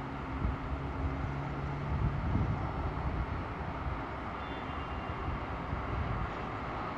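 Outdoor street ambience heard from high above: a steady hum of distant traffic, with a vehicle engine tone in the first two seconds. Wind buffets the microphone about two seconds in.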